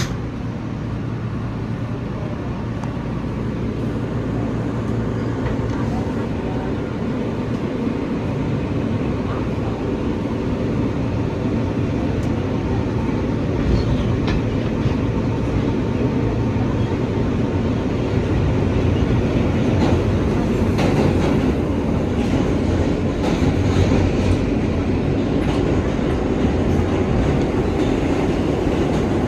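R143 New York City subway train running on the track: a steady rumble of wheels on rail that grows gradually louder, with a few short clicks from the rails.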